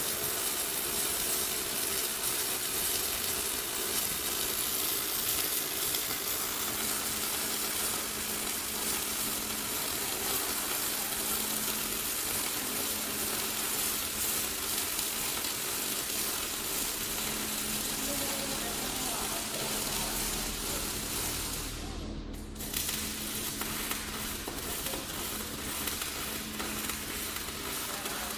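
Gas metal arc (MIG) welding arc giving a steady crackling hiss. The arc stops for under a second about 22 seconds in, then strikes again.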